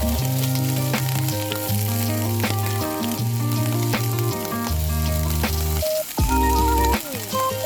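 Background music of held notes over a bass line that steps to a new note every second or so, with a constant crackling hiss laid over it.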